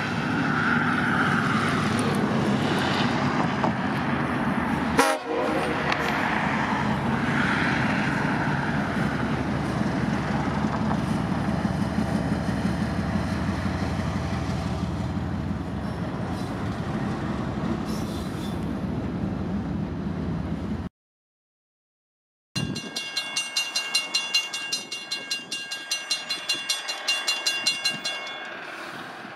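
CSXT 1726, a Wabtec ET23DM (SD23T4) diesel locomotive, running steadily at close range, with one sharp click about five seconds in. After a cut, the locomotive's horn sounds, its level pulsing again and again.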